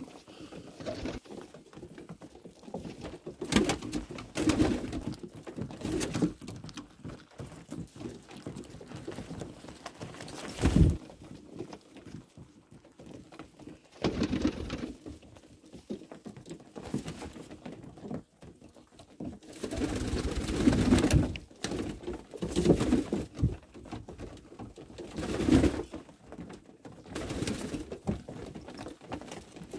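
Domestic pigeons cooing over and over in low voices, with wings flapping now and then and beaks pecking at corn kernels.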